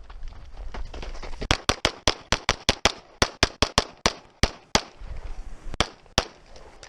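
SIG P320 pistol firing in fast competition strings: about eighteen sharp shots starting a second and a half in, in quick runs and pairs a fraction of a second apart, with a longer gap between shots about five seconds in.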